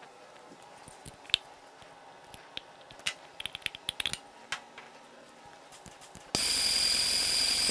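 Small clicks and taps as the valve cover comes off a BMW R80 boxer-twin cylinder head. About six seconds in, the electric starter engages and cranks the engine steadily with an even rhythmic pulsing; the plugs are out and the ignition is disconnected, so it spins over without firing, pumping oil up to the rocker arms.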